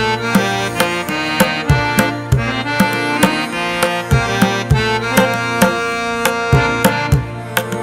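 Background music: a steady hand-drum beat under sustained held melodic notes.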